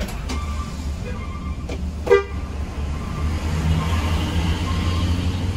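Hino RM 280 coach's diesel engine running low and steady, heard from inside the cabin, building a little as the bus pulls away. A short horn toot comes about two seconds in, and a faint beep repeats about once a second.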